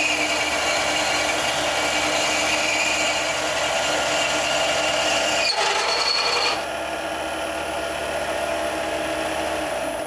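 Small Chinese mini lathe drilling a 19.5 mm hole in steel with a Morse-taper twist drill fed from the tailstock, without a smaller pilot hole: a steady, loud grinding cut over the motor's whine. About six seconds in there is a brief high squeal and the noise drops as the drill breaks through, and the lathe runs on more quietly.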